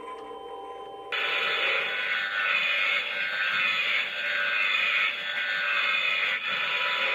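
Speaker of a Halloween electric-chair and high-voltage-box prop playing a loud crackling electrical-zap sound effect. It cuts in abruptly about a second in, after a soft tonal drone, and runs on with an uneven pulsing.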